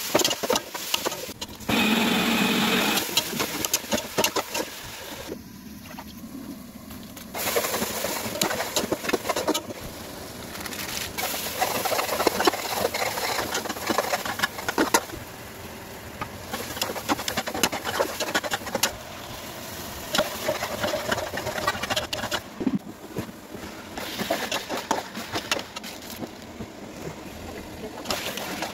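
Food frying and sizzling in a pot, with a spoon stirring and scraping against the pan; the sound changes abruptly several times.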